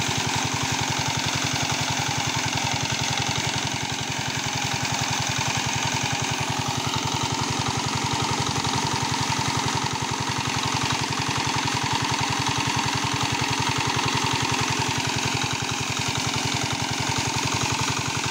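Single-cylinder diesel 'shallow machine' engine running steadily with an even beat, driving a pump that flings a spray of water onto a fish pond to aerate it, with the steady splash of the falling water.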